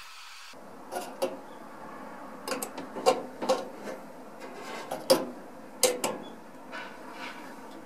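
Irregular light metallic clicks and taps as a thin metal rod touches the igniter plugs and burner of a Dainichi fan heater. The loudest taps come about three and five seconds in.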